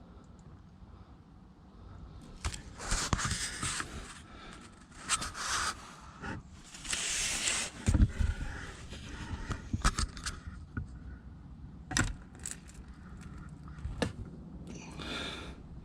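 Irregular metallic clinks, scrapes and a few sharp knocks of tools and parts being handled while working on the van's oil drain, with several longer scraping rustles between them.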